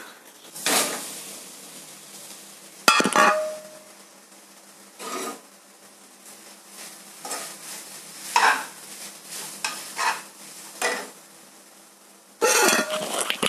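Grated coconut going into a wide metal kadai of hot coconut oil and being stirred with a steel slotted spoon. There is a sharp metallic clink about three seconds in, then repeated scraping strokes of the spoon against the pan, louder near the end.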